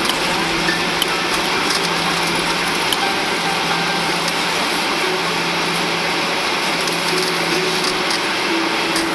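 Steady cabin roar of a Boeing 737-800 rolling along the runway after touchdown: its CFM56 engines and airflow over the wing, with a constant low hum and a few faint rattles.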